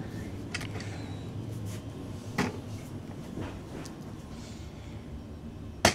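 Handling noise as the camera is carried across a room: faint rustling and a few light knocks, with one sharp click near the end.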